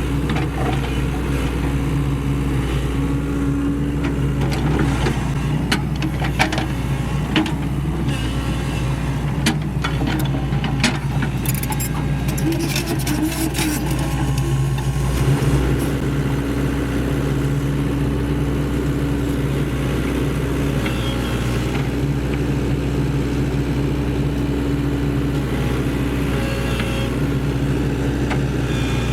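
Sany SY75C mini excavator's diesel engine running steadily at working speed. From about five seconds in until about halfway there is a stretch of sharp clattering knocks and scrapes as the bucket works soil into the trench.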